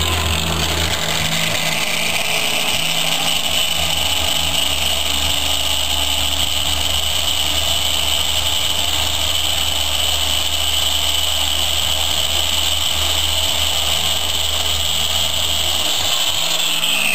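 Electric power tool running steadily, a high-pitched whine over a low hum, then switched off near the end, its pitch falling as it winds down.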